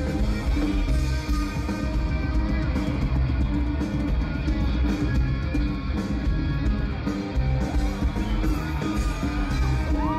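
Rock band playing live through a stage PA, picked up by a phone in the crowd: loud electric guitar and bass guitar over a steady drum beat.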